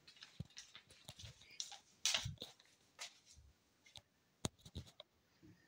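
Scattered light knocks and taps from someone moving about a room, with a few sharper clicks; the loudest knock comes about two seconds in.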